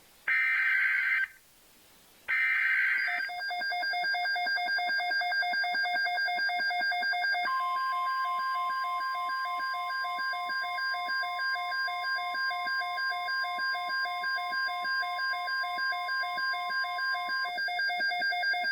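The last two screeching SAME digital header bursts of a NOAA Weather Radio alert, a second apart, followed by a rapid pulsing alarm beeping. About seven seconds in, the steady 1050 Hz Weather Radio warning alarm tone joins for about ten seconds, then cuts off while the pulsing beeps go on.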